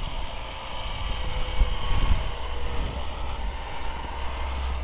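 A snowplow truck driving by on the street, its engine running steadily.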